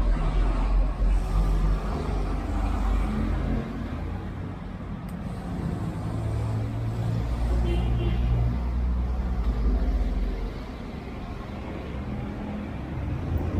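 Yamaha NMAX scooter's single-cylinder engine running at idle on an aftermarket Pitsbike racing ECU being tuned from a laptop, its speed rising and falling slightly.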